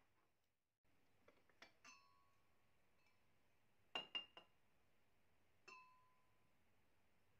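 Floral porcelain tea-for-one set clinking. A few light clinks come about two seconds in, then two sharp ones around four seconds as the teapot is lifted off its cup, and one more near six seconds, each ringing briefly.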